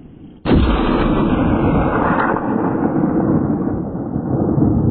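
A hunting rifle shot about half a second in, sudden and loud, followed by an echo that rolls on for about four seconds, slowly fading.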